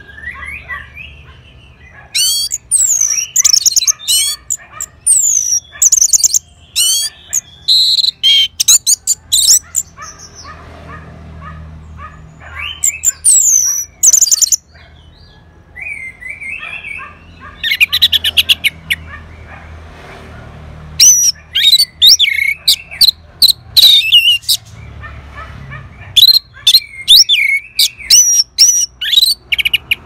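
Orange-headed thrush singing: loud, varied phrases of quick whistled sweeps and rapid trills, in bursts of a few seconds with short pauses between them.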